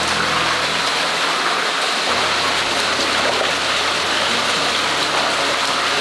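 Water pouring and splashing steadily into a concrete eel tank as a netful of eels and water is emptied into it, the surface churning with eels.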